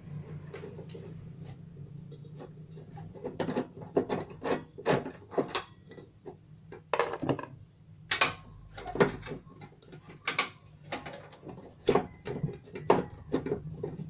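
Screwdriver and metal parts being worked inside an opened microwave oven's chassis while the magnetron is unscrewed: a run of sharp clicks, knocks and scrapes starting about three seconds in, over a steady low hum.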